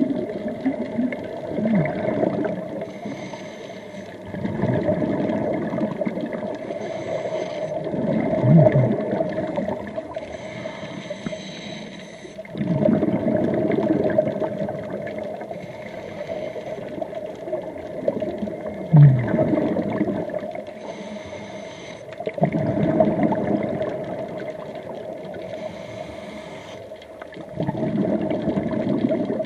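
Scuba diver breathing through a regulator underwater: a short hiss on each inhale, then a burst of bubbling as the breath is let out, repeating about every four to five seconds.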